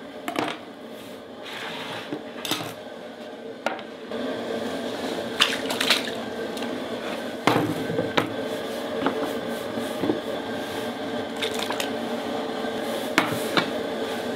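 Cooking clatter at a cast-iron cauldron: scattered knocks and clinks of metal utensils and cookware, the sharpest about halfway through, over a steady hiss that gets louder about 4 seconds in.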